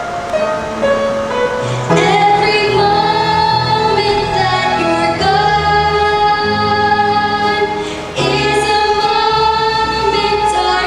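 A female voice singing a stage-musical song over instrumental accompaniment, holding three long notes in turn.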